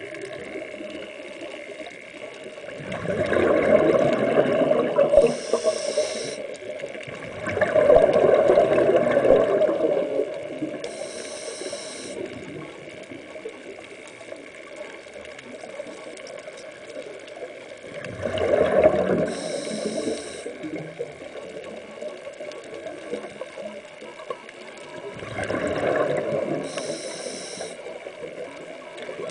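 Scuba regulator breathing underwater: four bursts of bubbling exhaled air, roughly every seven seconds, each followed by a short high hiss.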